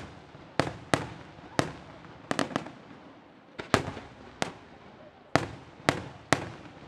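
Aerial firework shells bursting: about a dozen sharp bangs at uneven intervals, some in quick pairs and triples, each trailing off in an echo.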